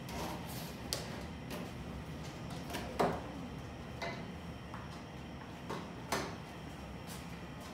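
Light clicks and knocks of plastic breathing-circuit fittings and rubber reservoir bags being handled and set down on an anaesthetic machine, about five in all, the sharpest about three seconds in, over a steady low hum.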